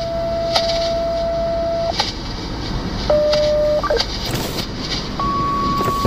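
Two-tone sequential paging tones from a scanner radio, heard inside a moving car over steady road noise. A steady tone holds until about two seconds in, a short lower tone follows, and a higher tone starts near the end. These are county dispatch tones for the tornado siren test.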